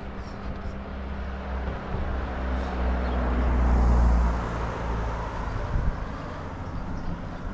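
A motor vehicle passing by: a low rumble swells to a peak about halfway through, then fades, over steady outdoor background noise.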